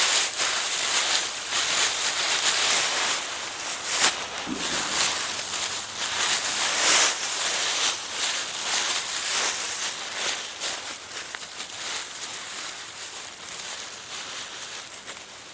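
Digging through garden soil to unearth potatoes: irregular scraping and rustling of earth and dead vines, easing off in the last few seconds.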